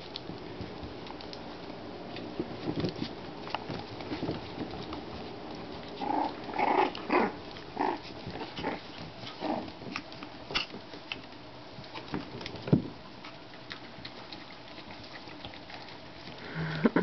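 33-day-old Shichon puppies play-fighting on a tile floor: a few short high yips about six to eight seconds in, over scattered clicking and pattering of small claws and paws on the tile.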